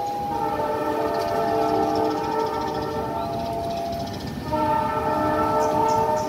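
Train horn sounding two long blasts, each a chord of several notes; the second blast starts about four and a half seconds in.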